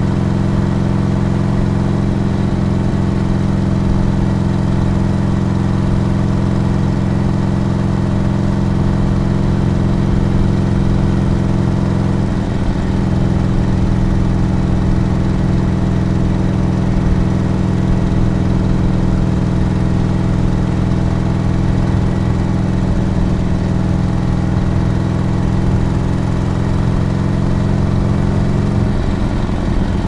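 Harley-Davidson Forty-Eight's air-cooled 1200 cc V-twin running steadily, with a slight shift in pitch about twelve seconds in and again near the end.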